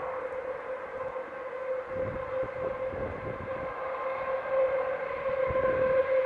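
A steady, drawn-out droning tone from an unseen source in the sky, held on one pitch with a few overtones and growing slightly louder near the end. Low rumbles come and go under it twice.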